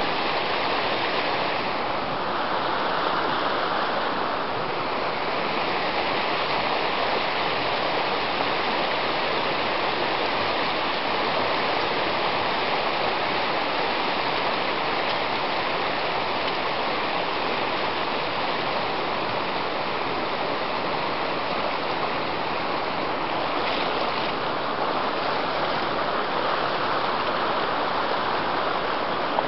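Shallow, rocky mountain river rushing steadily over stones.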